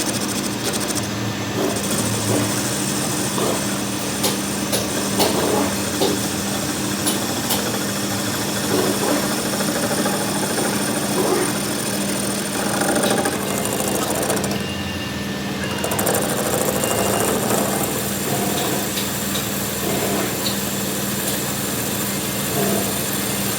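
A workshop machine's motor running with a steady hum, with scattered light metallic clicks and knocks over it.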